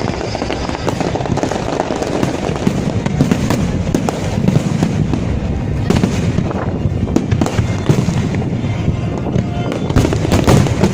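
Fireworks display in full barrage: rapid, overlapping bangs and crackles over a continuous low rumble.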